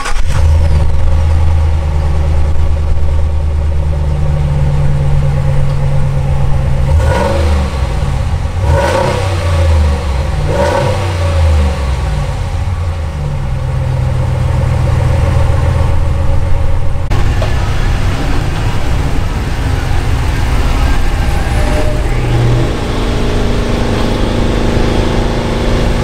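Ram 1500's 5.7-litre Hemi V8 idling at the exhaust tips, revved briefly three times in quick succession partway through. About two-thirds of the way in, the sound changes to a steadier engine hum.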